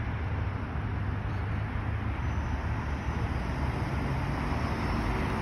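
Steady road traffic noise at an intersection: cars pulling away on a green light and driving through.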